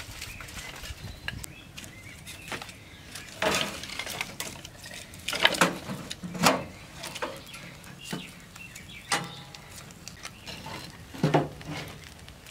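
Sticks of firewood knocking and clattering against each other and the metal cookstove as they are gathered and pushed into the stove's firebox, with several louder knocks spread through.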